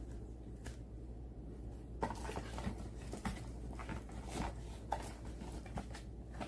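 Quiet room noise with a low hum, then, from about two seconds in, scattered faint clicks and rustles like small objects being handled.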